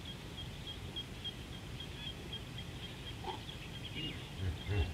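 A small bird or insect repeats a short high chirp about three times a second over a low outdoor rumble, fading out about halfway through. Near the end, deep pulsing hippo grunts start up and grow louder.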